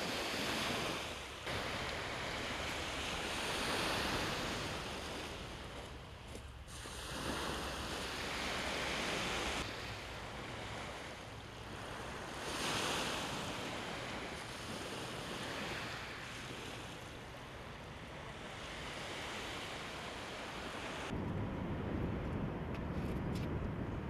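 Surf and wind on the shore: a wide rushing hiss that swells and eases every few seconds. Near the end it gives way to a lower, duller rumble.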